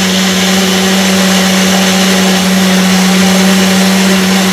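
Countertop jug blender running steadily, whipping eggs, mustard and oil into mayonnaise: an even motor whir with one strong low hum under it.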